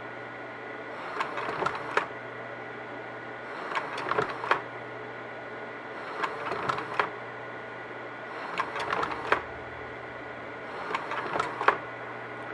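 Vivitar 3000AF slide projector changing slides forward five times, about two and a half seconds apart. Each change is a short run of mechanical clicks ending in a sharp clack, over the projector's steady hum.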